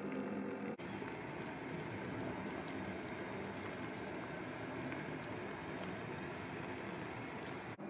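Beef bites simmering in a slow cooker: a steady soft bubbling and crackling. Before it, a brief steady hum cuts off just under a second in.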